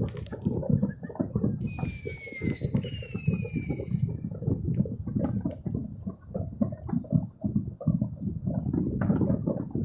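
Fireworks going off in a dense, irregular string of low pops and booms. Several whistles fall in pitch about two to four seconds in.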